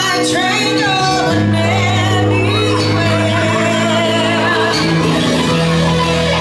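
Live pop-rock band playing a cover with a singer over electric guitar, keyboards and drums, amplified through PA speakers.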